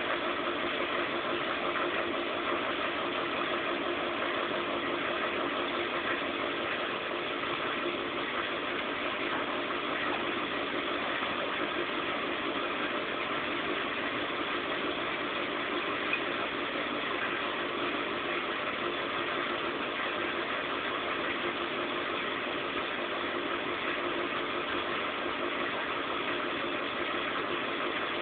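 Zanussi Z 630 front-loading washing machine running through its final rinse-and-spin programme: a steady mechanical hum with several steady tones and no pauses or changes in speed.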